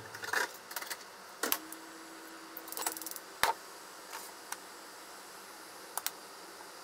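Small clicks and light knocks of a plastic shaker container and kitchen items being handled on a countertop spice rack, with one sharper knock about three and a half seconds in and a double click near the end.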